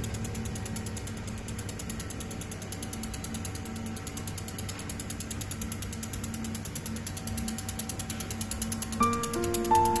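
1500 W pulsed fiber laser welder firing on a steel mold block: a fast, even ticking from the laser pulses over a steady low hum. Music with a stepping melody comes in near the end.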